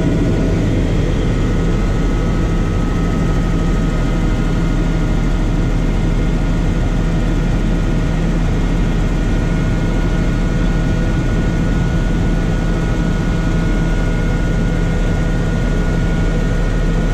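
Helicopter engine and rotor noise heard from inside the cabin in level flight: a steady, unbroken drone with several high whining tones above it.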